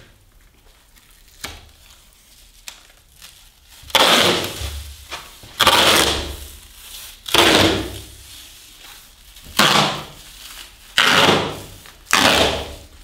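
Cloth gaffer tape being pulled off the roll in about six loud ripping pulls, one every second and a half or so, each starting sharply and tailing off. The first few seconds are quiet apart from a couple of light taps.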